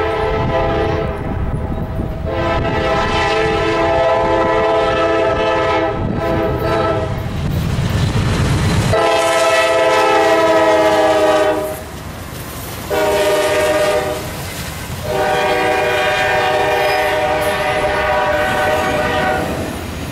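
Diesel freight locomotive's multi-chime air horn blowing a series of blasts, long, long, short, long, the grade-crossing signal, as the engine passes close by. The horn's pitch drops slightly as the locomotive goes by about ten seconds in, over the rumble of the train.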